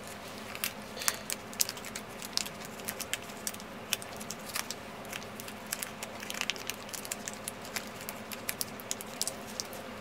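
Gloved hands handling e-scooter controller wiring and plastic plug connectors: scattered small irregular clicks and crinkles throughout.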